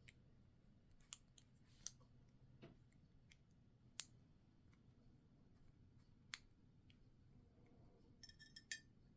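Small metal clicks of a hand tool prying at the retaining C-clip on an American Lock 1100 padlock core, a single click every second or so, then a quick run of ringing metallic clicks near the end.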